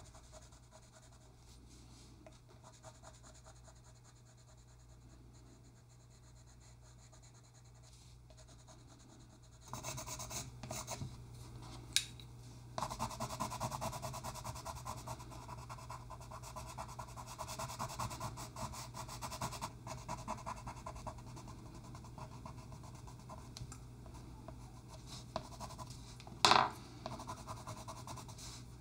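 Coloured pencil scratching across paper in rapid short shading strokes, faint at first and louder from about a third of the way in. A sharp tick near the middle and a louder short knock about two thirds of the way through, like a pencil being set down on the desk.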